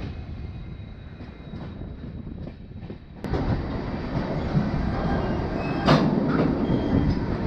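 Passenger train of LHB coaches running on the track, a steady rumble with rail clatter; about three seconds in it suddenly gets louder, and near six seconds there is one sharp clank.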